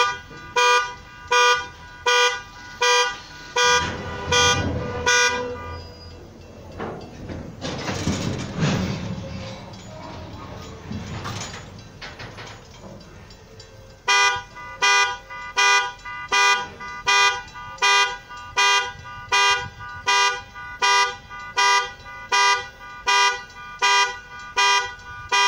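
Railroad grade-crossing bell ringing in a steady rhythm, about one and a half strokes a second. It stops for several seconds in the middle, where a slow-moving train's wheel and rolling noise comes through, then starts ringing again.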